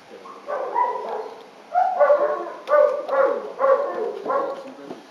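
A dog barking repeatedly, about half a dozen barks roughly half a second apart.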